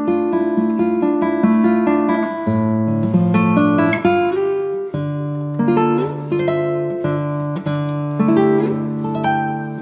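Background music played on acoustic guitar: plucked melody notes over a bass line that changes every second or so.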